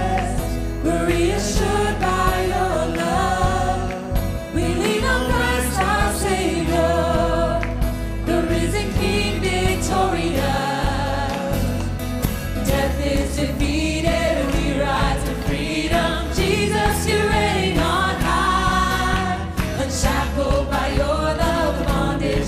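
Live contemporary worship band: several singers sing a praise song together over acoustic guitar, bass guitar and keyboard, with a steady low bass line.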